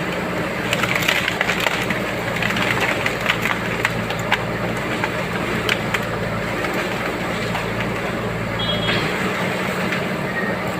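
Backhoe loader's diesel engine running steadily, with scattered short knocks and clicks over it.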